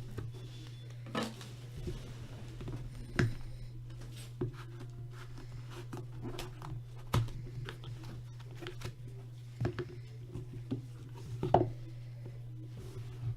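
Trading-card packaging and cards being handled: scattered light clicks, taps and rustles, the sharpest about three, seven and eleven seconds in, over a steady low hum.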